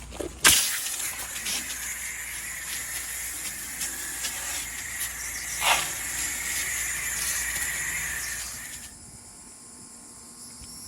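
Pressure washer spraying water in a steady, loud hiss that starts suddenly about half a second in and cuts off near the end, with a low hum underneath that stops when the spray does.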